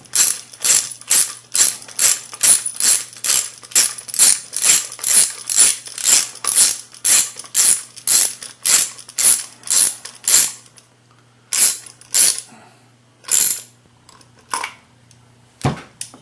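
A ratchet tool tightening the screw that holds a Magpul pistol grip to an AR rifle's lower receiver, at about two ratcheting strokes a second for some ten seconds. It then slows to a few separate strokes, and a few small clicks and a thump come near the end.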